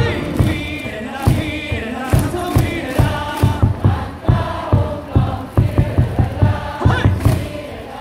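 Baseball stadium crowd singing a cheer chant in unison over a steady thumping beat, about three beats a second.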